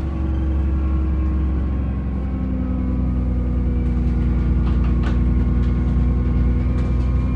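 Dennis Trident double-decker bus with Enviro400 body, its diesel engine running under way: a heavy low rumble with a steady high turbo whine over it. A few brief rattles come about five seconds in.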